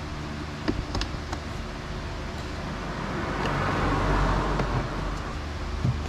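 A steady, engine-like low hum, with a few light clicks about a second in and a louder rush of noise that swells and fades in the middle.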